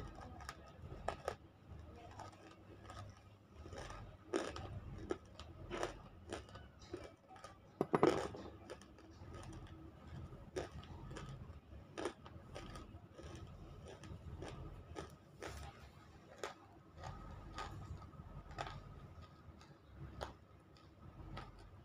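Close-up crunching and chewing of half-roasted baked clay chunks (nakumatt) in the mouth: irregular sharp crunches and snaps, the loudest about eight seconds in.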